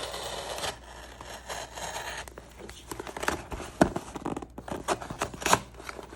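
A knife cutting through packing tape and cardboard on a shipping box: irregular scraping and slicing, with a few sharp clicks, the loudest about four and five and a half seconds in.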